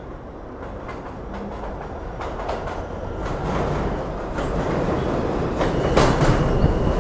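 An R142 New York City Subway train pulling into the station, growing steadily louder. Its wheels click over the rail joints, and a low steady hum from the train joins about halfway through.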